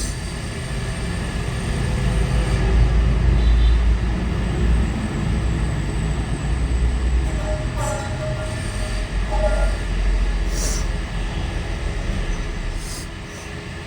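Loud, steady low rumble of a background noise, with a faint whine from about seven to ten seconds in.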